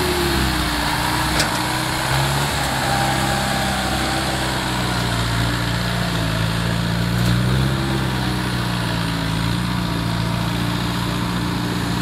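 Engine of a tracked rice harvester converted into a rice transporter, running steadily under load as the machine crawls through mud, its pitch rising slightly about seven seconds in.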